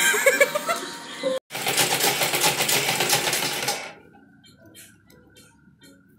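Sewing machine stitching fabric: a loud run at speed for about two seconds, then slower, quieter stitching with evenly spaced clicks over a steady motor whine.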